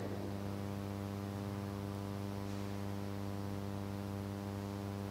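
Steady electrical mains hum, a constant low drone with a ladder of evenly spaced overtones that does not change.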